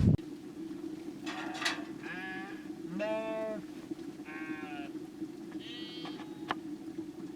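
Sheep of the flock bleating, about four separate calls a second or so apart, over a steady low hum.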